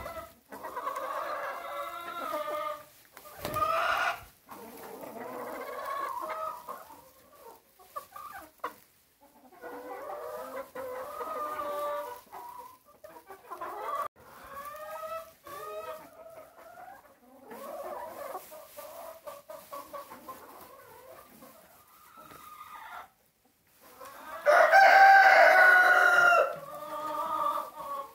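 A flock of chickens clucking and calling in short bursts with pauses between them. Near the end a rooster crows once, loudly, for about two seconds.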